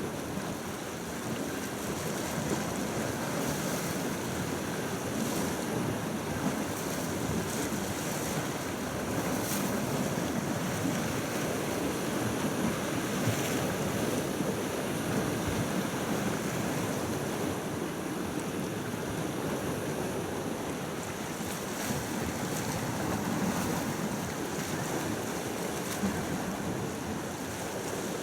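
Steady wash of small sea waves, with wind buffeting the microphone.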